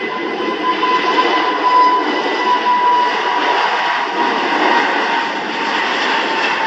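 Jet engines of an Airbus A320neo-family airliner running as it rolls along the runway: a loud, steady rush of engine noise with a thin, steady high whine on top.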